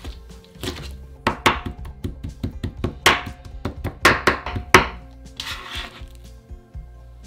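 Chef's knife rapidly chopping raw shrimp into a sticky mince on a thin plastic cutting sheet over a wooden board: a quick run of knife taps, several a second, with a few heavier strokes, then a brief scrape near the end as the blade gathers the mince. Background music plays throughout.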